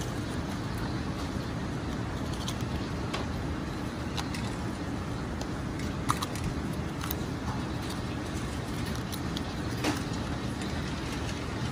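A steady low rumble of kitchen background noise, with a few short crisp snaps and clicks as green peppers are cored by hand with a small paring knife.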